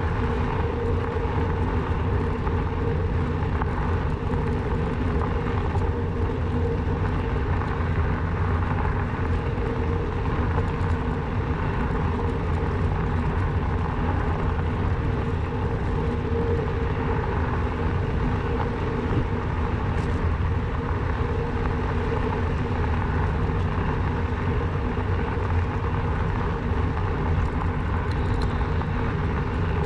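Steady running noise of a Rawbike electric bike on the move: a constant hum with tyre and ride noise, unchanging throughout.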